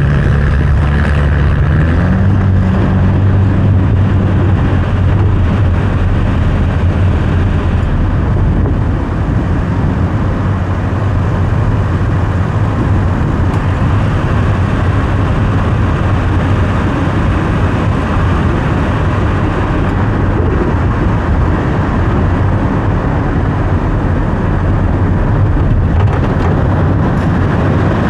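Car driving along a road: a steady low engine hum over tyre and road noise. The engine note rises a little about two seconds in.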